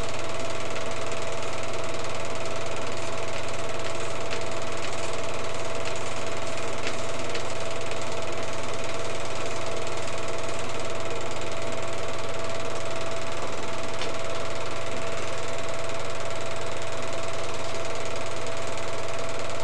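Film projector running: a steady mechanical clatter with a constant whining tone.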